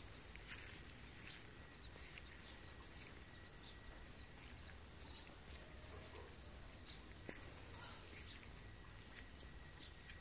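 Near silence: faint outdoor ambience with scattered light ticks and clicks.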